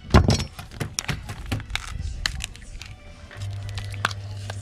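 A cleaver chops once onto a fresh cuttlefish on a wooden board, followed by a run of sharp cracks and clicks as the cuttlefish is pulled apart by hand. A steady low hum comes in about three and a half seconds in.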